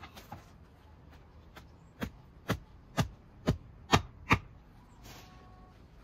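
Six sharp snaps about half a second apart, the later ones loudest, as a cutting tool works through a pheasant carcass.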